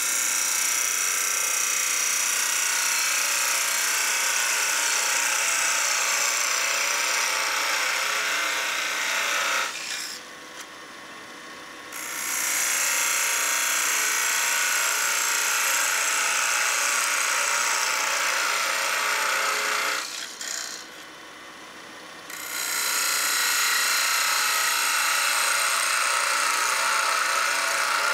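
A turning tool cutting spinning pine on a wood lathe, a steady hissing, scraping cut. It comes in three long passes with short breaks about ten and twenty seconds in, when the tool is lifted from the wood.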